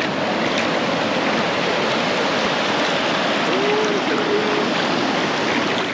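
Shallow beach surf washing over sand at the water's edge: a steady, unbroken rush of moving water.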